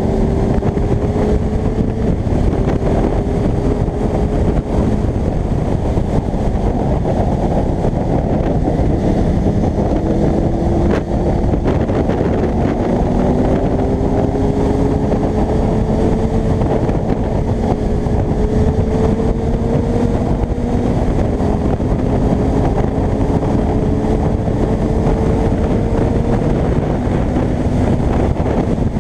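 Kawasaki ZX-6R inline-four sport bike running at road speed under heavy wind buffeting on the microphone; the engine note climbs slowly and steps to a new pitch several times as the gears change.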